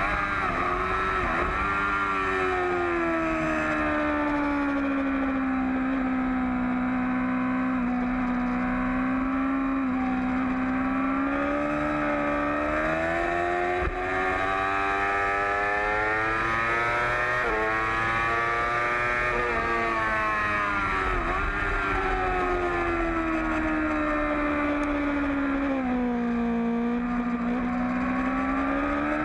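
Yamaha R6 inline-four engine at racing revs, heard from on board the bike, its pitch climbing as it accelerates and falling as it slows for corners, several times over.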